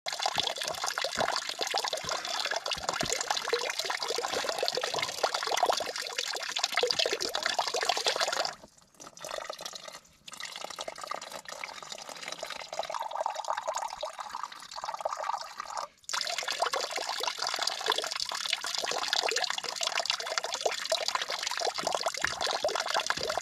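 Thin stream of spring water running from a fountain spout and splashing into a stone trough. In the middle stretch the stream goes into a soft plastic flask being filled, and the sound breaks off briefly a few times.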